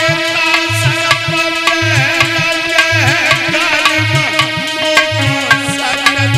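Instrumental music interlude of Indian devotional folk music: regular low hand-drum strokes under a melody with bending, wavering notes over a held drone.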